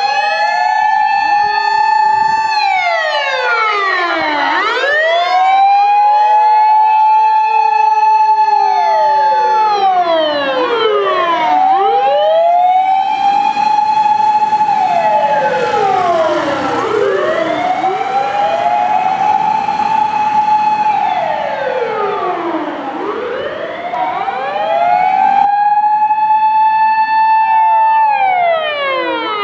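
Fire rescue trucks' motor sirens wailing, at least two out of step: each climbs quickly to a high steady pitch, holds it, then falls away, repeating about every five seconds.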